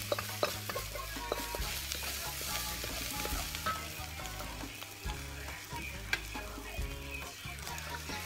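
Fried noodles and cabbage sizzling in a wok over a gas flame, while a wooden spatula stirs and tosses them with repeated scrapes and knocks against the wok.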